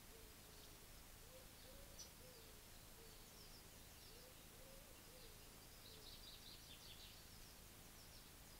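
House sparrows chirping faintly, in short high notes that come thicker about six to seven seconds in. Under them is a faint low call, repeated in short rising-and-falling phrases.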